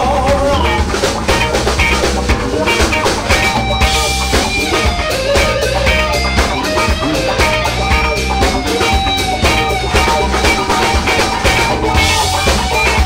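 Live blues-rock band playing an instrumental passage: electric guitars, bass guitar and drum kit, with a lead guitar line of sustained, bending notes on top.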